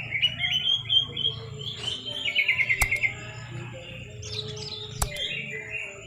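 Sooty-headed bulbul (kutilang) calling with bright, repeated chirping notes, including a quick run of about eight notes around two seconds in. Two sharp clicks cut through, one near the middle and one about five seconds in.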